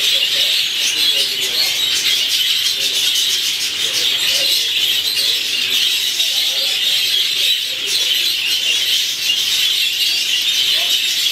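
A large flock of exhibition budgerigars chattering together: a dense, unbroken wash of warbling and chirping.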